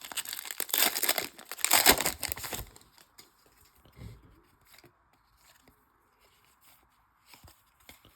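A foil trading-card pack torn open and crinkled, loudest over the first two and a half seconds, followed by faint scattered ticks and slides of the cards being handled.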